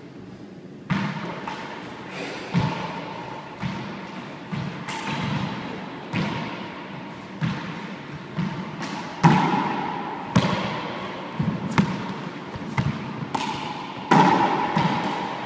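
A handball rally: a small rubber ball is slapped by hand and smacks off the walls and floor of an enclosed four-wall court. The hits start about a second in and come at irregular gaps of half a second to a second, each ringing on in the court's hard echo, with the loudest two late in the rally.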